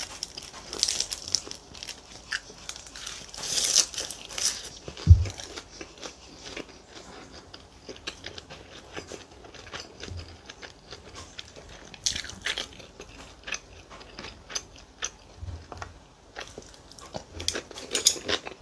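Close-miked eating: crunchy chewing and biting of rice wrapped in seasoned laver and side dishes, with light clicks of chopsticks and spoon. One dull low thump about five seconds in.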